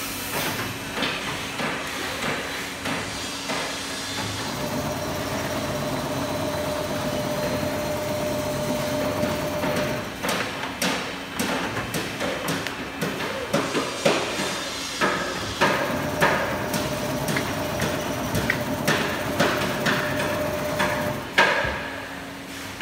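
Richpeace two-head bar tacking machine running: a steady mechanical whine in two long stretches over a constant hum, with clusters of sharp clacks and knocks between them.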